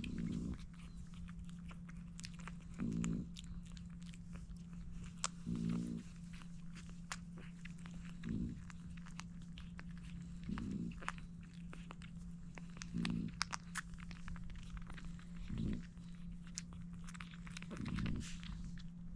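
Newborn French bulldog puppies suckling at their mother's teats, with many small wet clicks and smacks. A short, low nasal breath from a dog comes about every two and a half seconds over a steady low hum.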